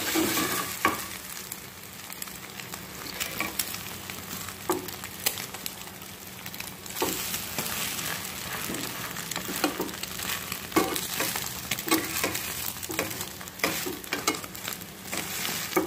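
Egg-coated bread slices frying in oil in a shallow pan, sizzling steadily, with a metal spatula repeatedly scraping and knocking against the pan as the slices are turned and pressed.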